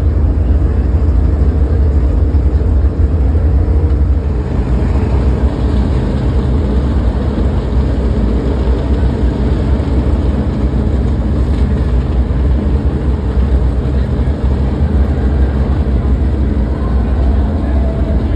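A loud, steady low rumble with people talking in the background.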